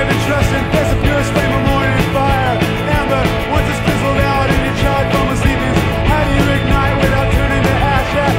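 Rock music with a steady drum beat.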